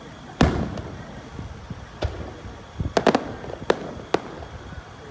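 Aerial firework shells bursting: a loud bang with a rumbling tail about half a second in, then a run of about six sharper reports between two and four seconds in, several close together around three seconds.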